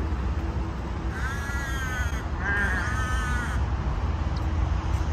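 A bird calling twice, two drawn-out wavering calls of about a second each, over a steady low background rumble.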